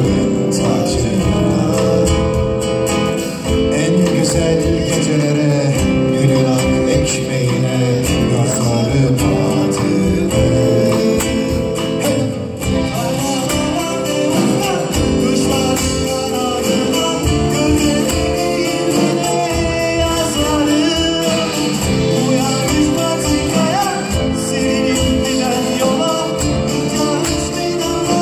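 A live folk-rock band playing: bağlama, acoustic guitar, electric guitar and drum kit, with a man singing into a microphone.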